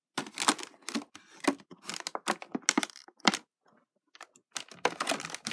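Clear plastic packaging crackling and crinkling as it is handled: a rapid run of sharp crackles, a pause of about a second past the middle, then more crackling.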